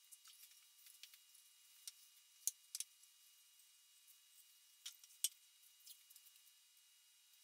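Sparse sharp clicks and light knocks of pine boards being handled and set in place on plastic sheeting, the loudest pairs about two and a half and five seconds in, with smaller ticks near the end.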